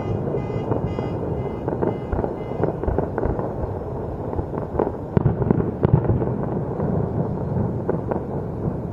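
A fireworks display heard across a valley: a continuous rumble of overlapping bangs and crackles, with the loudest booms about five to six seconds in.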